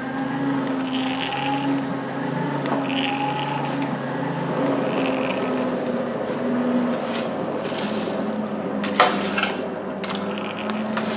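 Coal and a forge tool scraping as coal is worked into a coal forge fire, in strokes about every two seconds, over the steady hum of the hand-cranked forge blower. A sharp metallic clink comes about nine seconds in.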